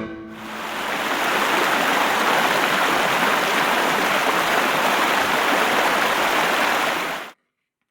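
A steady rushing noise like running water, swelling in over the first second and cutting off abruptly near the end.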